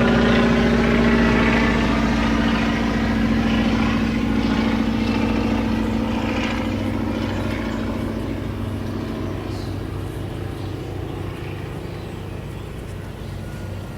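A motor vehicle's engine running steadily, gradually fading as it moves away.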